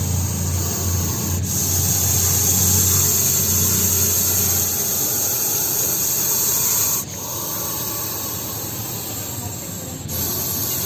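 Russell's viper hissing: a loud, long hiss that changes abruptly about a second and a half in, again near seven seconds and near ten seconds.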